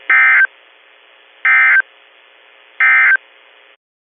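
Emergency Alert System end-of-message data bursts: three short, loud digital bursts about 1.4 seconds apart, marking the end of the broadcast warning. A faint steady hum runs underneath and cuts off near the end.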